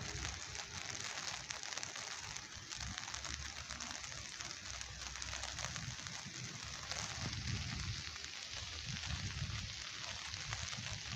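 Steady rain falling, an even hiss speckled with the patter of drops, with some low rumbling underneath.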